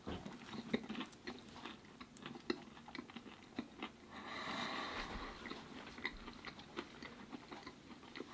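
Close-miked biting and chewing of a slice of crispy-crust pepperoni pizza: a bite about at the start, then chewing with many small crunches and mouth clicks.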